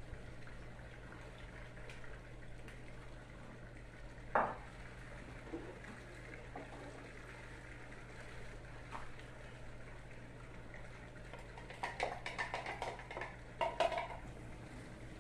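Kitchen handling at the stove: one sharp knock about four seconds in, then a quick run of clinks and clatter near the end as a container and utensil are handled over the pot. A steady low hum underlies it.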